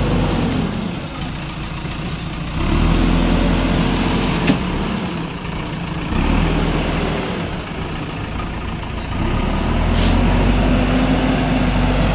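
Backhoe loader's diesel engine revving up in repeated surges and dropping back between them as it works. Two sharp knocks come through, one about midway and one near the end.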